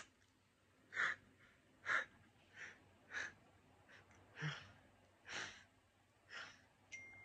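A person breathing out in short, faint breathy puffs close to the microphone, about one a second. A thin steady high tone starts near the end.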